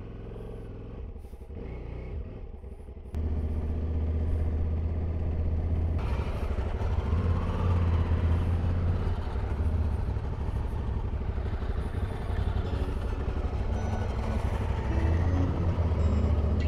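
Ducati motorcycle engine running as the bike rides off slowly, getting louder about three seconds in and then holding steady.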